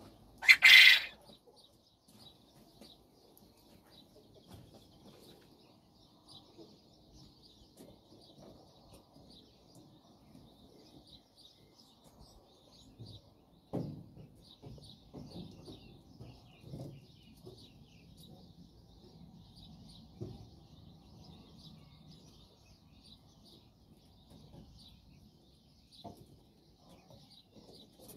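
Japanese quail calling: one loud, short call about half a second in, then soft, high chirping that goes on throughout, with a few faint rustles and knocks.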